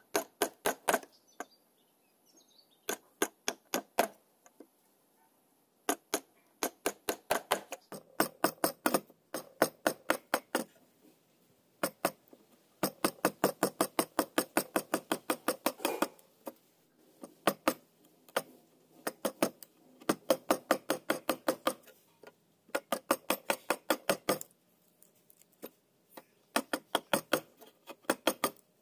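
Hand tools cutting a clamped hardwood block: runs of quick, evenly spaced strokes, several a second, broken by short pauses, as a chisel and then a handsaw work the wood.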